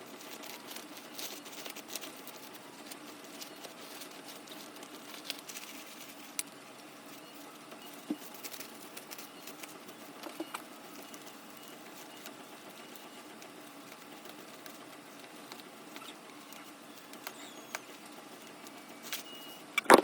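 Food dry-roasting in a pan: a faint, steady crackle with scattered clicks and taps.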